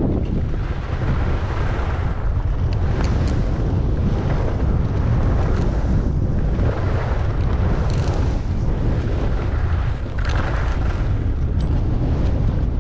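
Wind buffeting the microphone of a skier moving downhill, a steady low rush, with the hiss and scrape of skis on snow swelling in brief surges, the strongest about ten seconds in.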